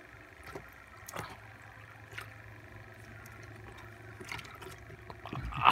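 Water splashing and sloshing in a bait bucket as a hand gropes around in it for a live baitfish: a few separate splashes over a steady low hum, and a sharp thump near the end.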